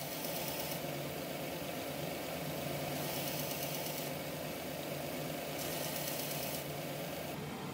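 Small benchtop belt sander running, with a black knife-handle block pressed against the abrasive belt. The steady grinding hiss grows louder and softer several times as pressure on the belt changes.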